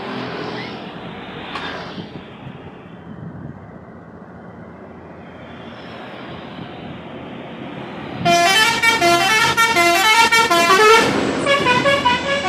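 Rumble of passing road traffic, then about eight seconds in a bus's basuri musical horn plays a rapid melody of short stepping notes, much louder than the traffic.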